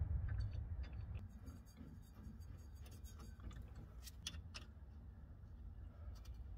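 Scattered faint clicks and light taps of the sway bar and its bracket hardware being handled into place, a few sharper ones about four seconds in, over a low background rumble.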